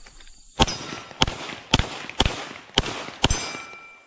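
Six 9mm pistol shots from a Glock 34, fired about half a second apart in a fast drill across several targets. After the last shot a faint thin ring lingers, as of a hit steel plate.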